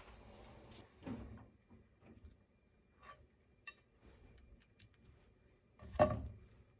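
Quiet room with small handling noises: a few light clicks and taps, a soft knock about a second in, and a louder knock with a brief ring about six seconds in.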